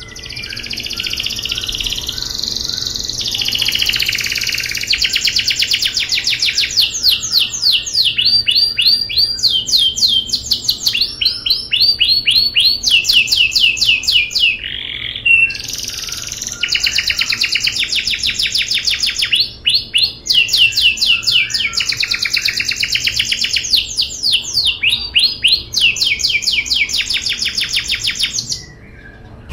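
Domestic canary singing a long, loud song of fast rolling trills, the phrase changing every second or two, with brief breaks. The song stops just before the end.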